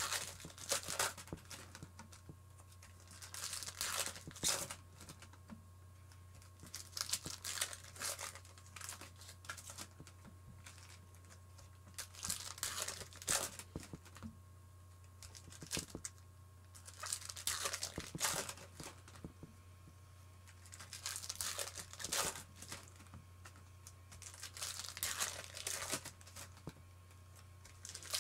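Foil wrappers of baseball card packs being torn open and crinkled, in irregular bursts of crackling with short pauses between them.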